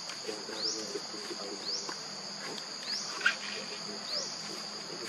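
Steady high-pitched insect chorus with a short rising chirp repeating about once a second. Faint low calls sound in the first second and a half, and there is a single sharp click about three seconds in.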